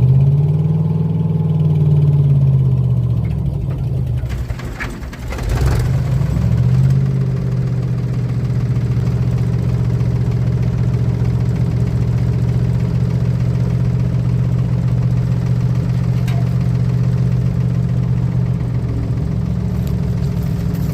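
An engine running: its speed rises and falls over the first few seconds and dips about five seconds in, then it runs at a steady speed.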